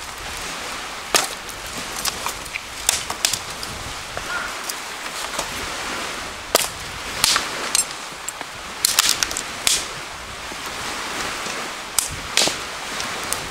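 Dry dead branches snapping as they are broken by hand for firewood: sharp cracks at irregular intervals, several in quick succession about nine seconds in.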